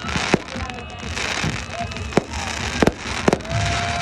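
Fireworks going off: about four sharp bangs over continuous crackling, with a long steady tone starting near the end.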